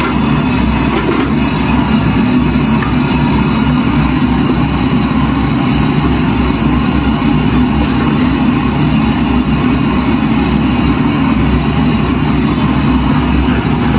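Chicken pieces searing in hot oil in a pan: steady sizzling over a low continuous roar.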